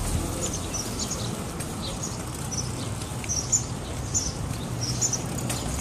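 Small birds chirping in short, high notes that repeat irregularly, over a steady low rumble of street noise.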